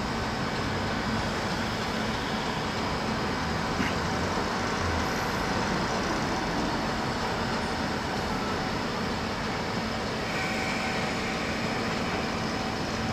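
Fukui Railway 200-series tram car running on street track, a steady rumble mixed with road traffic, with a single sharp click about four seconds in.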